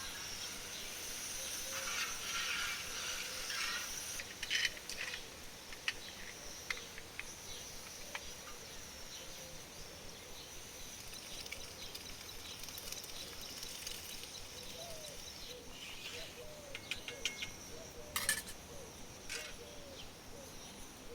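Outdoor countryside ambience: insects chirping steadily, with short bird calls in the second half and a few sharp clicks and knocks, the loudest about four seconds in and near the end.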